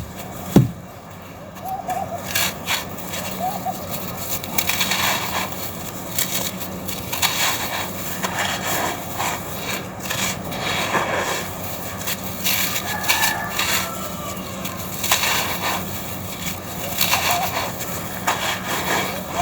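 Dry red sand-and-cement chunks being crushed and crumbled: a dense, irregular run of gritty crunches and crackles.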